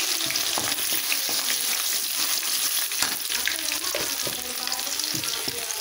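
Chopped ginger, curry leaves and mustard seeds sizzling and crackling in hot oil in a kadai, the tempering stage of the dish, with a spatula stirring against the pan now and then.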